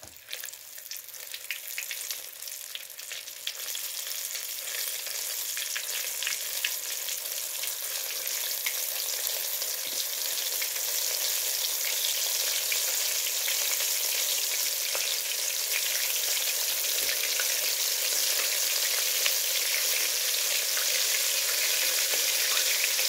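Flour-coated fish pieces deep-frying in hot ghee in a kadhai: a sizzle with fine crackles. It grows louder over the first several seconds as more pieces go into the oil, then holds steady.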